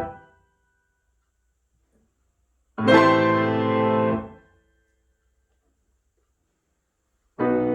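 Piano playing slow, separate chords, each struck and held for about a second and a half, then released into silence. One chord dies away at the start, another sounds about three seconds in, and a third begins near the end.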